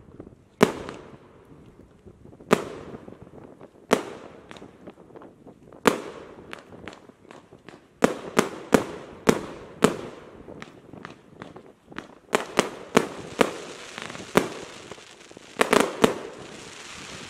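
A 50-shot, 1.2-inch consumer fireworks cake (Kometa P7711 Atomówka) firing single shots. Sharp bangs come a second or two apart at first, then in quicker clusters. A crackling hiss from crackle stars follows near the end.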